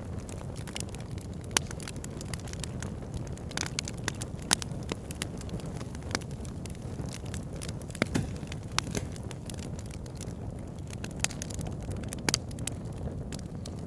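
Campfire burning: a steady low rumble of flames with sharp, irregular crackles and pops of burning wood, a few of them much louder than the rest.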